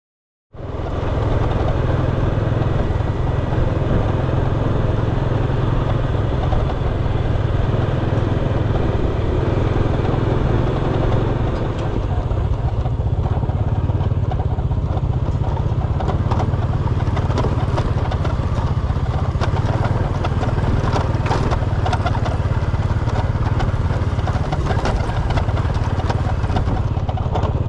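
An engine running steadily with a heavy low rumble, with some light clatter in the second half; it starts abruptly about half a second in and cuts off suddenly at the end.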